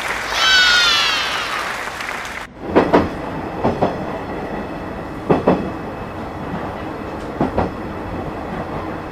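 A few seconds of music that cuts off abruptly, then a train running on rails: a steady rumble with the wheels knocking over rail joints in pairs, a clickety-clack about every two seconds.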